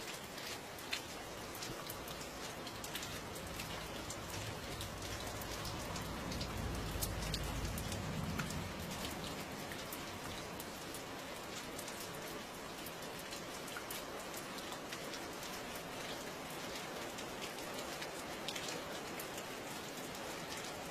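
Steady rain falling, with many individual drops ticking sharply on a hard surface over an even hiss. A low rumble swells under it from about four seconds in and fades out near the halfway point.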